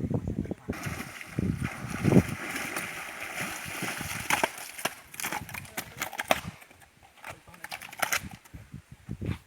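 Water splashing and sloshing in a shallow river for several seconds, with scattered sharp clicks and knocks that go on after the splashing dies down, about six and a half seconds in.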